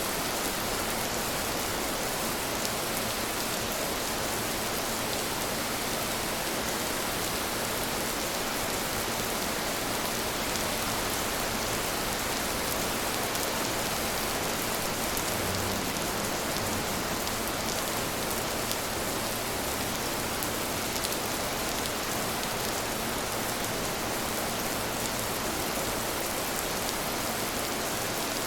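Steady rain falling: an even, unbroken hiss with fine patters of individual drops.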